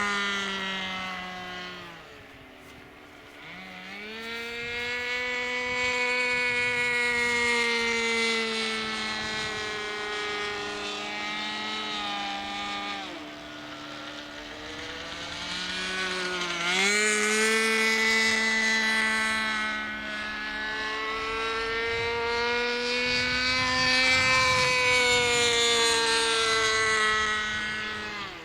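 Seagull Spacewalker 46 radio-control model plane in flight, its engine giving a steady buzzing note that rises and falls as it circles. Twice, about halfway through, the pitch drops sharply as the plane passes close by.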